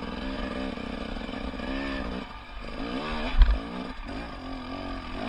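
Off-road motorcycle engine being ridden, its revs rising and falling again and again under the throttle, with one heavy thump about three and a half seconds in.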